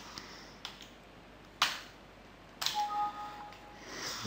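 Two sharp clicks, about a second apart, then a short two-note computer alert chime as a Windows system dialog box appears.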